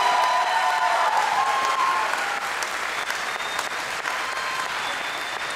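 Audience applauding, with a few voices calling out over the clapping in the first couple of seconds; the applause eases off slightly after about two seconds.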